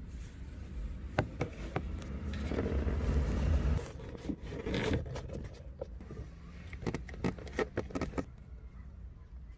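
Hands working a car's plastic center console: scraping and rubbing of the trim, with scattered sharp clicks and knocks, loudest about three seconds in.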